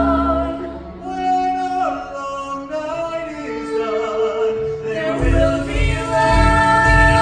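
Musical-theatre cast singing a show number with accompaniment: voices hold long notes that step between pitches, and a pulsing low accompaniment comes in about five seconds in.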